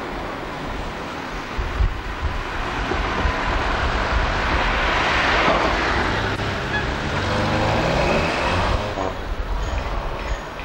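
A car drives past close by, its engine and tyre noise swelling to a peak about halfway through and then fading away.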